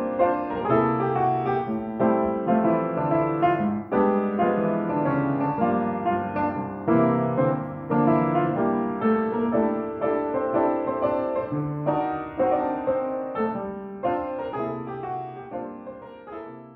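Outro music played on piano: a steady run of notes over a recurring bass note, fading out near the end.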